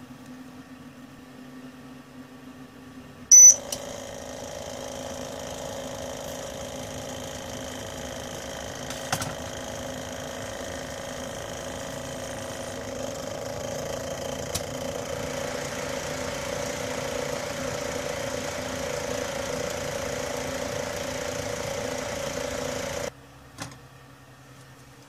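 A small electric motor running with a steady hum and hiss. It starts with a sharp loud click and a short high beep, cuts off suddenly near the end, and a single click follows.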